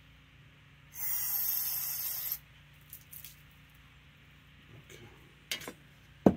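An aerosol can of brake parts cleaner sprays one hissing burst of about a second and a half onto a brake caliper bracket. A few light clicks follow, then a sharp knock near the end as the can is set down on the bench.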